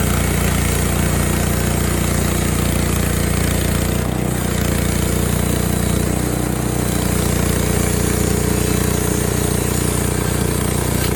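Frontier OS23 portable bandsaw mill running steadily, its engine driving a used band blade through a log, with a brief change in the engine's note about four seconds in.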